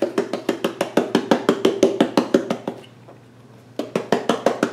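Large plastic McCormick Gourmet Italian seasoning shaker jar being shaken over food: a fast, even run of sharp taps, about six a second, that pauses for a moment about three seconds in and then starts again.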